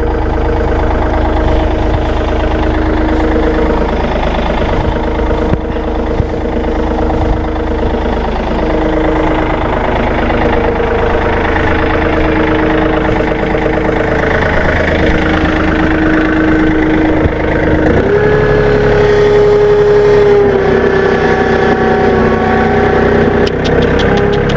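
Tractor engine running steadily, its pitch drifting with the throttle, then stepping up to a higher, steady engine speed about three quarters of the way through.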